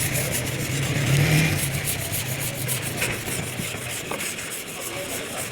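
Sanding on a car's bodywork: a steady abrasive rubbing, with a low hum fading out in the first two seconds.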